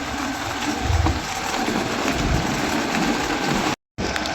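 Steady engine and road noise from a moving motor vehicle, with low rumbling swells. The sound cuts out completely for a moment about four seconds in.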